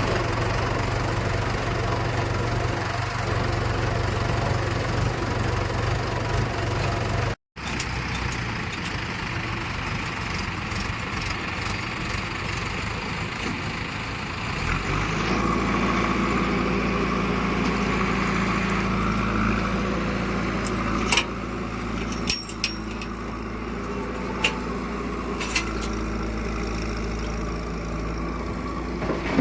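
Heavy diesel machinery engines running steadily, with a brief dropout a few seconds in and a change to a different, lower steady engine note about halfway. A few sharp knocks come near the end.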